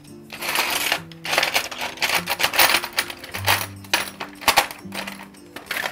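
Kitchen utensils clattering and scraping at a wooden cutting board in three rattling bursts, followed by a few sharp clicks, over soft background music.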